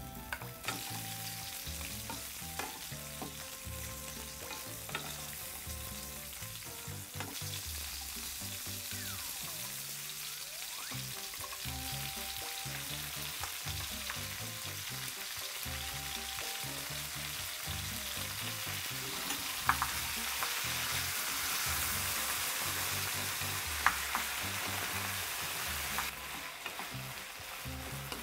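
Sausages and then chopped peppers and onion sizzling as they fry in an oiled frying pan, stirred with a wooden spoon. The sizzle grows louder in the second half, with two sharp knocks. Soft background music with a low bass line plays underneath.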